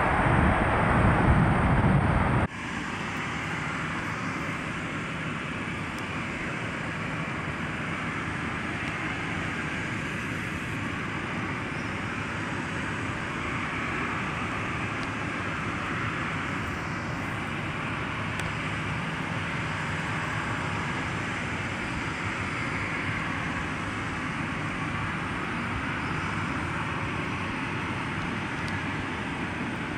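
Boeing 737-800 jet engines: a loud roar from a landing 737 on its rollout for about the first two seconds, cut off suddenly, then the steady, quieter run of a 737-800's CFM56 engines as it taxis and lines up on the runway.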